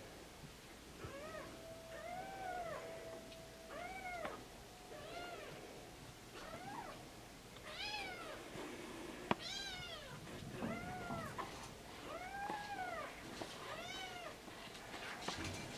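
Burmese kittens mewing: about ten short, arching mews, one every second or so. A single sharp click about nine seconds in.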